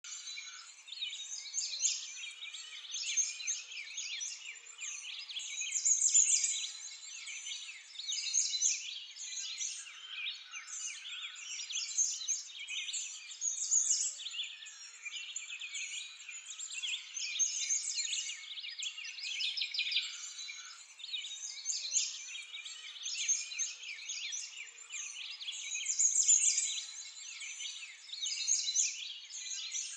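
A continuous chorus of many small birds chirping and singing over one another, all high-pitched, swelling and fading irregularly.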